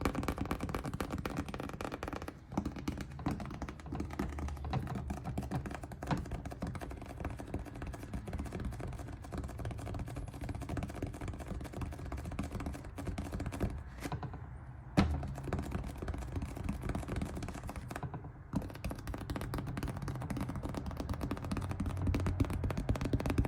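Experimental noise made with paintings: dense crackling and clicking over a low steady hum, with a sharp click about fifteen seconds in.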